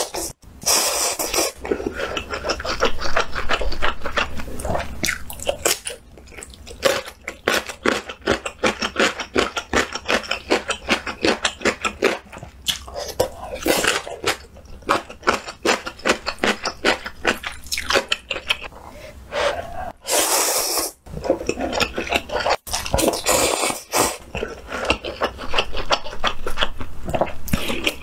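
A person slurping instant noodles into the mouth in a loud rush, then chewing them with many quick, wet smacking clicks. Another brief loud slurp comes about twenty seconds in.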